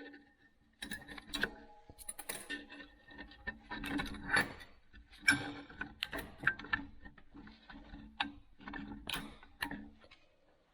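Metal parts of a bench vise being handled and pulled out: irregular clinks, knocks and rattles of metal on metal, some ringing briefly.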